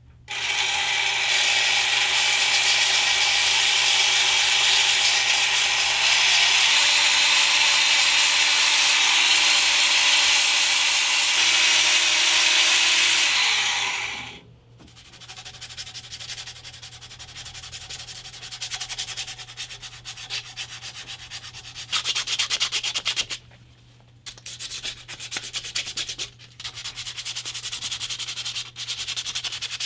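Steel being sanded on a running 2x72 belt grinder for about 14 seconds, its pitch shifting twice, then it stops. Quieter, uneven hand-sanding strokes follow, with short pauses.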